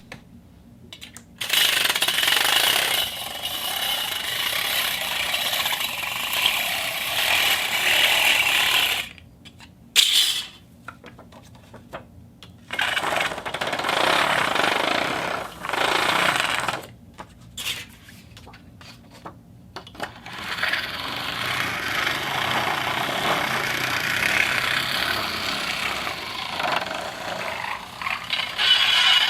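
Fishing reel being cranked in three long runs with short pauses between and a brief burst about ten seconds in.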